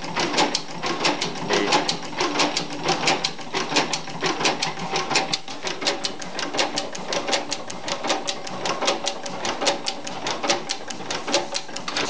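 1903 40 hp Union stationary gas engine running, its mechanism clicking in an even, rapid rhythm of about four or five clicks a second.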